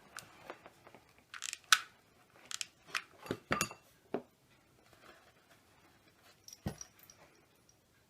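Hands handling burlap on a cardboard milk carton: scattered rustles and crinkles with a few light taps and knocks.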